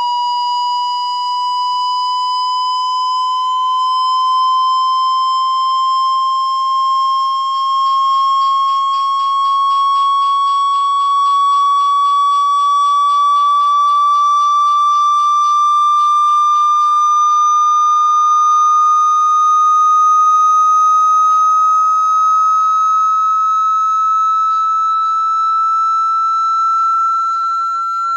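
Water-eject tone for a phone speaker: one loud pure tone that climbs slowly and steadily in pitch, meant to shake water out of the speaker. A faint buzz rides along for several seconds midway.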